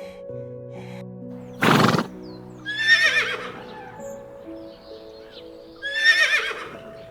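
Horse whinnying twice, about three and six seconds in, each a wavering high call, with a short loud noisy burst just before the first. Soft background music with held notes runs underneath.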